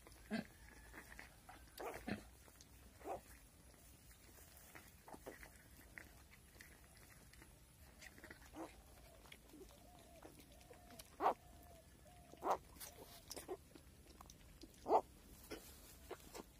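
Short, sharp animal calls at irregular intervals, the loudest in the second half, with faint short squeaks in between.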